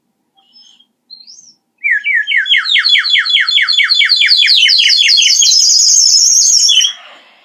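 Water-filled ceramic bird whistle blown in a long warbling trill of fast chirping notes, about five a second, rising slowly in pitch and ending in a steady high trill. It cuts off near the end, after a few faint chirps about a second in.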